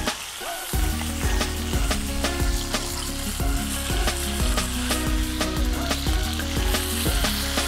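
Chicken frying in hot fat in a cast-iron pan, a steady sizzle with many small crackling spatters as its second side browns.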